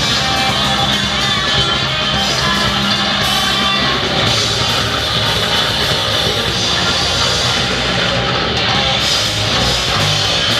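Loud heavy rock music with electric guitar, played continuously.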